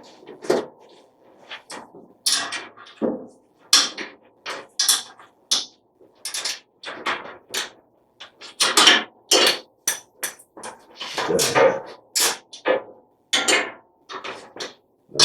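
Hand tools knocking and clanking on metal, in irregular sharp strikes about one or two a second.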